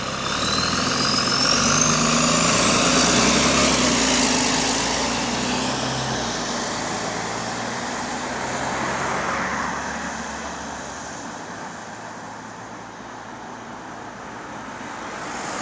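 Bus with an exhaust leak pulling away, its engine note joined by a high whine that rises in pitch; it is loudest about three seconds in, then fades into general traffic noise.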